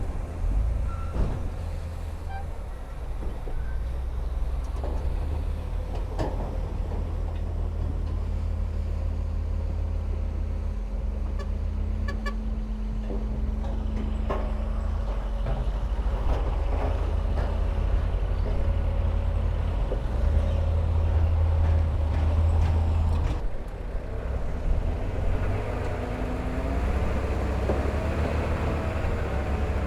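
Heavy diesel earthmoving machinery running, a deep steady engine drone with scattered clanks and knocks. A higher engine note holds from about seven seconds in and cuts off suddenly near twenty-three seconds.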